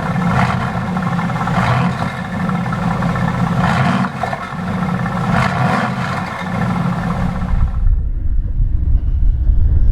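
Mercedes-AMG GT's twin-turbo V8 running through its exhaust with several short revs in the first part. About eight seconds in the sound changes to a deep low rumble with the higher tones gone.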